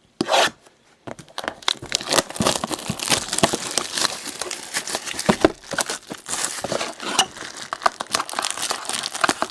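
Plastic wrapping being torn off and crinkled as a sealed box of trading cards is opened. A short sharp rip comes just after the start, then about a second in a steady run of crackling and crinkling.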